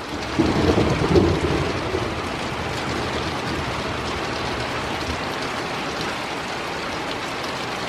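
Heavy rain falling steadily, with a low rumble of thunder that starts about half a second in, is loudest over the next second and a half, then fades under the rain.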